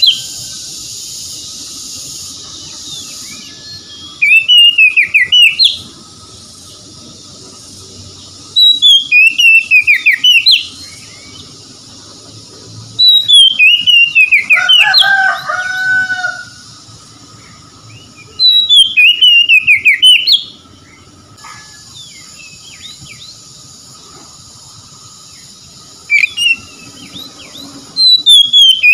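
Oriental magpie-robin singing loud whistled phrases, each a second or two long and sliding down in pitch, with pauses of a few seconds between them. The phrase near the middle ends in lower notes.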